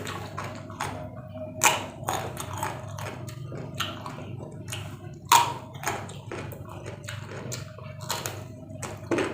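Close-up crisp crunching of raw vegetables being bitten and chewed: irregular sharp crunches, two louder ones about a second and a half in and near the middle, over a faint steady hum.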